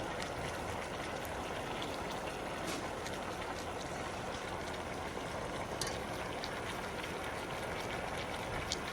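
Water boiling in a pot: a steady bubbling hiss with small scattered pops.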